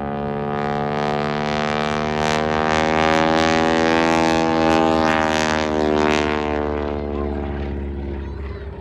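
Propeller-driven aerobatic airplane's engine droning steadily overhead, growing louder toward the middle and then fading, its pitch sagging near the end as the plane pulls away.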